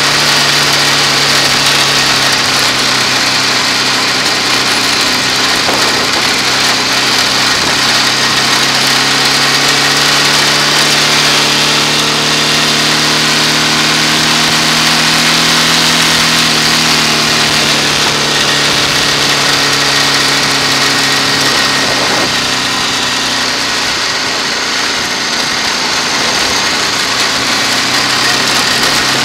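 Motorcycle engine running while riding, its pitch rising through the middle and falling back as the throttle changes, over steady wind and road rush.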